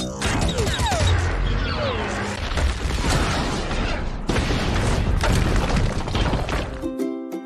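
Film action sound effects: a motorcycle engine running with falling pitch glides as the bike flies through the air, then explosions and crashing debris over a dense rumble. Near the end the effects cut off suddenly and light ukulele music starts.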